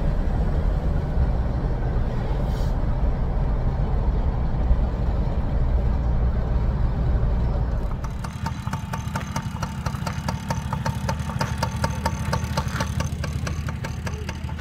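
Steady low rumble of a moving vehicle heard from inside the cab. About eight seconds in it gives way to an engine idling with an even, ticking beat.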